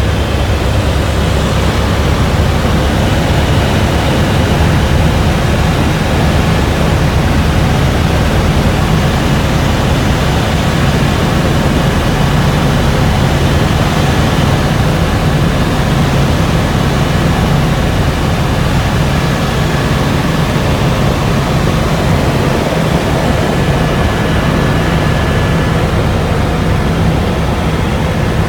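Helicopter in flight heard from inside the cabin: the loud, steady drone of the engine and rotors, heaviest in the low end, with a faint high steady whine.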